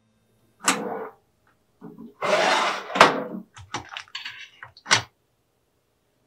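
Tableware handling on a wooden plate and tray: a short rustle, then a longer crackling scrape and a run of small knocks and clicks as a crusty bread roll and a knife are handled.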